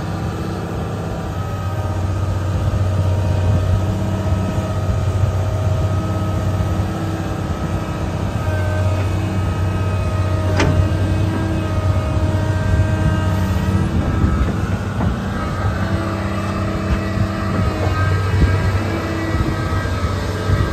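Komatsu PC600LC-8 excavator's six-cylinder diesel engine running under hydraulic load, with a steady pump whine whose pitch shifts as the arm and bucket curl in and the upper structure swings. A single sharp knock sounds a little past halfway.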